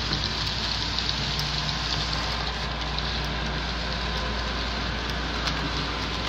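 Model train running past on the layout track: a steady hiss and rattle of metal wheels rolling on the rails and the locomotives' motors running, over a low hum.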